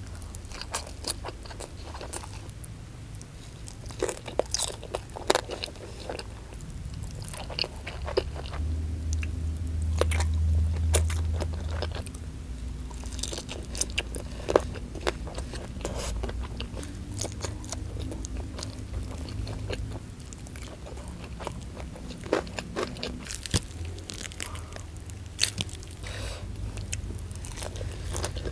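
Close-miked eating: repeated crunchy bites and chewing of a meal with rice, with a steady low hum underneath that swells for a few seconds around the middle.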